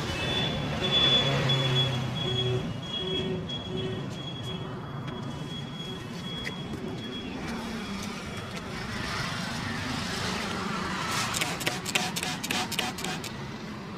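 Street traffic: a steady bed of passing vehicle noise with a thin high whine over the first half, and a low beep repeating about twice a second in the first few seconds. Near the end comes a quick run of sharp clicks.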